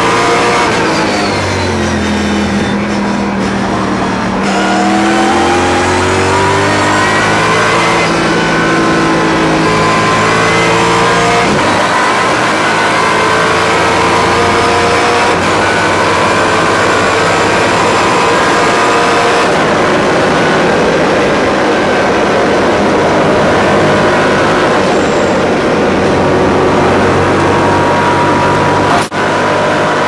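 Mercedes C63 AMG V8 race car at racing speed, heard from inside the cabin. The engine's pitch drops and climbs repeatedly through gear changes, then holds high and steady, with one short drop-out near the end.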